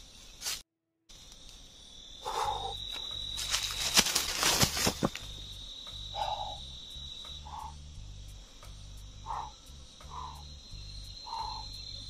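A steady high-pitched insect drone with soft background music underneath from about two seconds in. A short burst of crackling and rustling comes around the middle.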